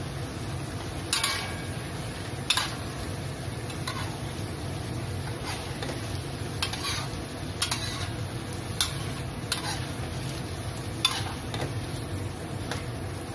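Spatula scraping and knocking against a wok as prawns are stir-fried and tossed, about ten irregular strokes roughly a second apart, over a steady sizzle of frying.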